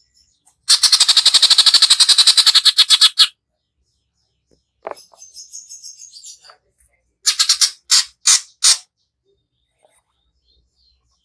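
Cucak ijo (greater green leafbird) singing in harsh rapid 'shots': a long rattling trill of about two and a half seconds, then a short note and softer high twittering, then four short harsh bursts in quick succession.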